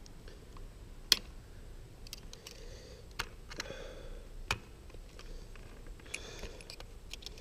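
Small metal clicks, taps and scrapes of a pocketknife blade working at a nail jammed in the nose of a Bostitch coil roofing nailer, whose driver ram is stuck down; one sharp click about a second in is the loudest.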